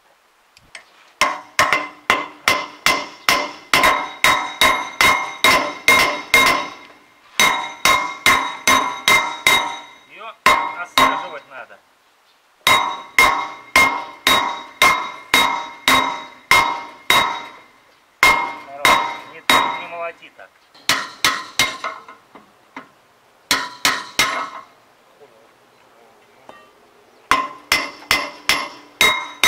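Hammer blows on steel at the roller shaft of a Claas Rollant 46 round baler, driving at the shaft's fittings while a worn roller bearing is replaced. The blows come about three or four a second in runs of several seconds with short pauses, and each one rings like struck metal.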